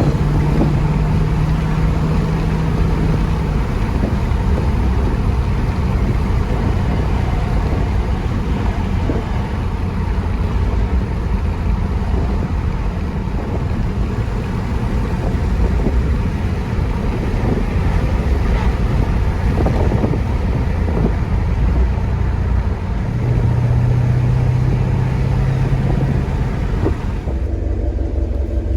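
Jeep Grand Cherokee SRT's 6.4-litre V8 and road noise heard from inside the cabin while driving: a steady rumble with a low engine drone that fades after about three seconds and returns for a few seconds near the end.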